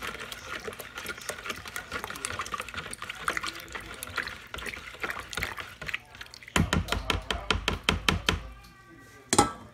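A big spoon stirring sugar into water in a container: liquid swishing with light clinks of the spoon. About six and a half seconds in, the stirring turns to quick, regular strokes, about five a second, and a single knock comes near the end.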